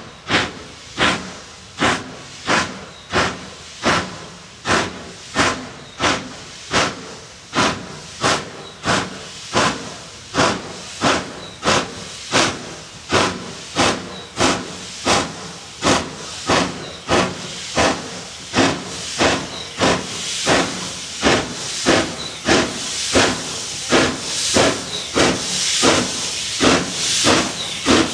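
Saddle-tank steam locomotive chuffing as it works a goods train, sharp evenly spaced exhaust beats at about three every two seconds, getting louder as it approaches.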